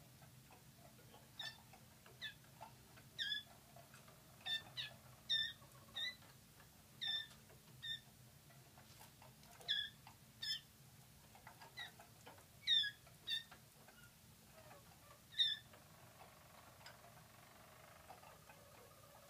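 Young Harzer roller canaries giving short, single chirp calls at irregular intervals, sometimes two or three close together. In the last few seconds a faint, low, steady warbling song begins.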